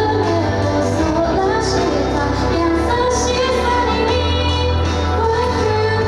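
Pop song with a female voice singing over a steady backing of bass and instruments.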